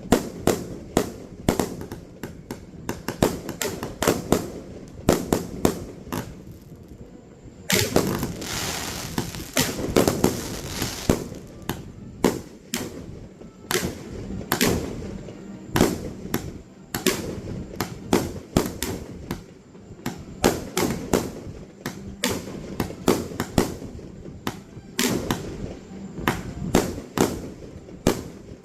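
Fireworks show: aerial shells bursting in rapid succession, many sharp bangs, with a dense, nearly unbroken barrage about a third of the way in.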